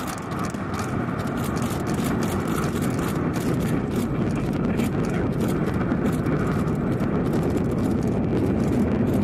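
Distant roar of a Falcon 9 rocket's nine Merlin engines during liftoff and early climb: a deep rumble laced with rapid, irregular crackling, growing steadily louder.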